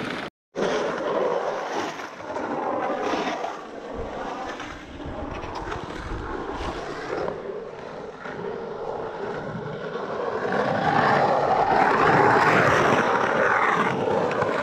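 Skateboard wheels rolling over the asphalt of a pump track. The rumble swells and fades as the board rides the rollers and is loudest near the end, with a short dropout just after the start.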